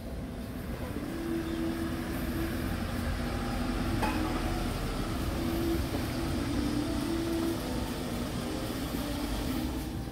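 Motor vehicle passing on a city street: a low rumble with a steady hum that builds to its loudest around the middle and then eases off.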